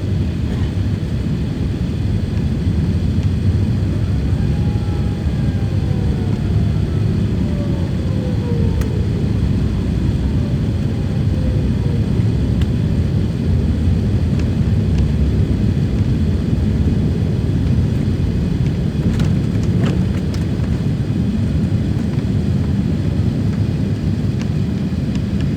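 Jet airliner's engines heard from inside the cabin during the climb just after takeoff: a steady low rumble, with a faint falling whine between about four and twelve seconds in.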